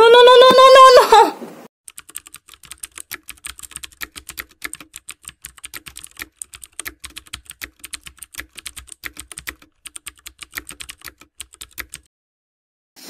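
Typewriter-style typing sound effect: a rapid, uneven run of key clicks for about ten seconds, stopping about a second before the end. It follows a loud, drawn-out cry, rising a little in pitch, that lasts about a second and a half.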